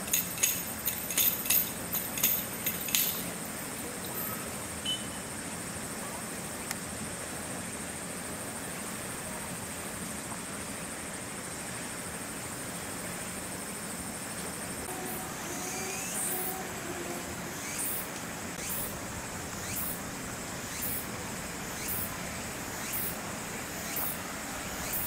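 A metal chain rattling and clinking in a quick run of sharp clicks for about three seconds, as a chimpanzee handles a chained metal bar. Steady outdoor background noise follows, with faint high ticks about once a second in the last ten seconds.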